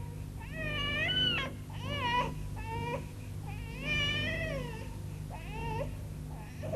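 Infant crying: a string of about six wailing cries, each rising and falling in pitch, the longest about four seconds in, over a steady low hum.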